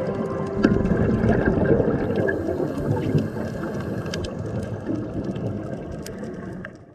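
Underwater ambience recorded on the dive camera: a steady water noise sitting mostly low in pitch, with scattered sharp clicks, fading out near the end.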